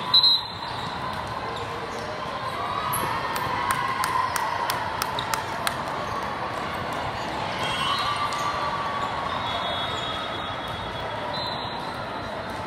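Volleyball play on a hard indoor court: a sharp, loud ball smack just after the start, then a series of short ball hits and bounces a few seconds later, over the steady din of a large echoing hall.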